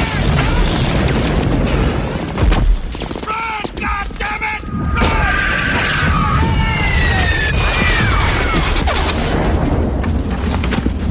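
Movie battle sound: rapid, dense rifle and machine-gun fire with explosions, the loudest boom about two and a half seconds in.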